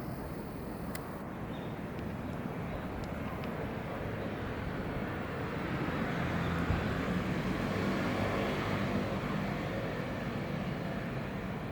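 Steady engine noise from a passing vehicle, building to its loudest in the middle and easing off towards the end.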